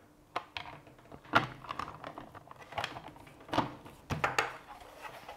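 Light plastic clicks and taps, five or six in an irregular series, as a 3D-printed plastic lid and small screws are handled and set in place.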